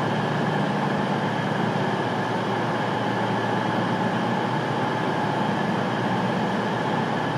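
Diesel multiple unit running at the platform: a steady engine drone with a constant higher whine above it, level throughout.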